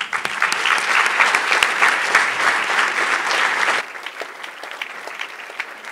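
Audience applauding, loud for nearly four seconds, then dropping off suddenly to thinner, softer clapping.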